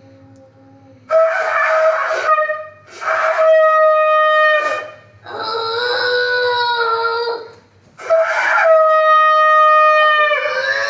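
Shofar blown in four long blasts with short breaks between them; the third blast is lower in pitch, and the last runs on past the end.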